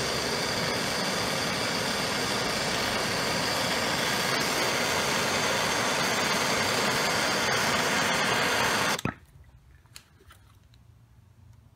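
Gas blowtorch flame running with a steady hiss while it heats a crimped cable lug to flow solder into it; it cuts off suddenly about nine seconds in, followed by a few faint clicks.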